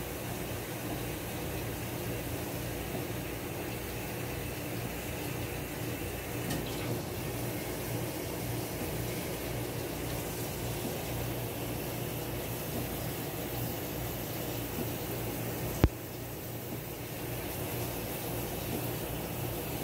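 Steady low hum and hiss of running machinery, with one sharp click about 16 seconds in.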